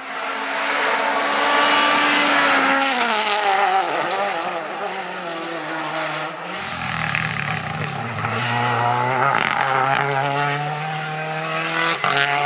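Rally car engine at high revs as the car comes through at speed, its pitch falling after a few seconds. About six and a half seconds in the sound switches abruptly to a deeper engine note, with its higher tones rising.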